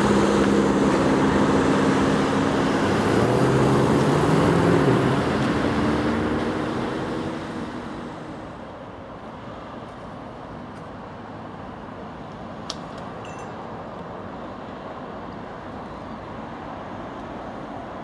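Mercedes-Benz C63 AMG's 6.2-litre V8 accelerating hard away, its exhaust note dropping at a gear change and then rising again before fading into the distance after about six seconds. Afterwards only faint steady traffic background with a single click.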